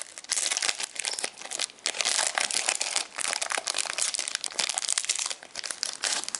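Foil booster-pack wrapper of a Pokémon trading card pack being torn open and crumpled by hand: a dense, irregular crinkling and crackling with a couple of brief pauses.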